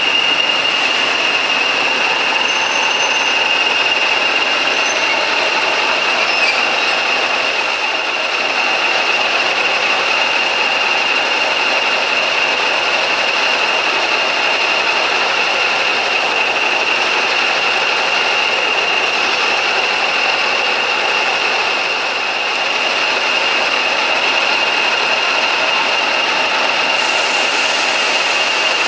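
English Electric Class 40 diesel locomotive D335 running slowly to a stand and then idling. Its turbochargers give the steady high whistle that the class is known for, over the engine's running noise.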